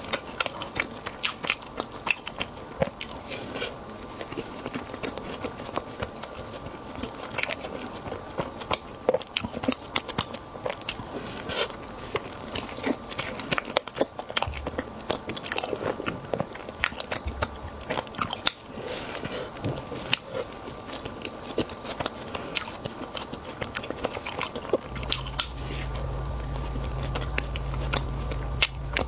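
Close-miked eating: repeated biting, chewing and crunching, with many irregular sharp clicks. A steady low hum comes in near the end.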